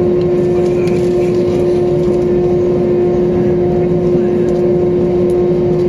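Steady engine and airflow drone inside the cabin of an Airbus A320neo, with a strong constant hum tone running through it.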